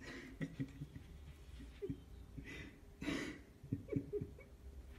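Whippet whimpering and huffing at a glass door: a few short, faint whines falling in pitch mixed with breathy sniffs and huffs.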